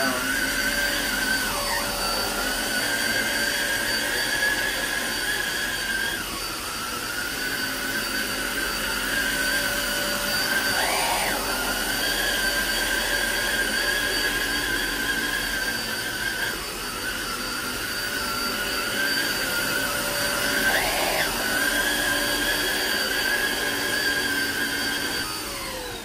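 Hoover ONEPWR Evolve Pet cordless upright vacuum running at full power while pushed over a shag rug: a steady high motor whine whose pitch dips briefly about every four to five seconds. Near the end the whine winds down as the vacuum is switched off.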